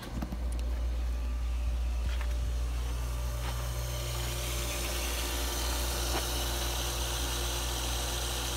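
Electric jacuzzi pump switching on the moment it is plugged in and running with a steady low hum as it pumps rain water from the tank on its first run. A hiss builds over the hum after a few seconds.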